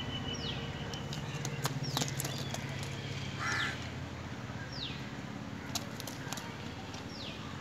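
Birds calling outdoors: a short high whistle that falls in pitch repeats every second or two, and a crow caws once about three and a half seconds in. A few sharp clicks come near the two-second mark, over a steady low hum.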